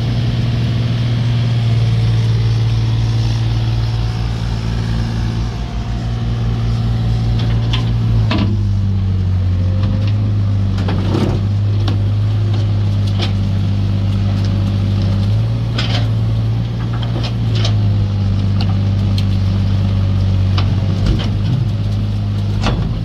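Heavy tracked excavator diesel engines running steadily during a recovery job, the engine note shifting a few times as the load changes. From about eight seconds in there are scattered sharp knocks.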